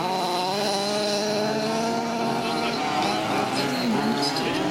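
Several 1/5-scale RC Baja buggies' small two-stroke petrol engines buzzing together as they race, pitch rising and falling with the throttle; one engine drops and climbs back about four seconds in.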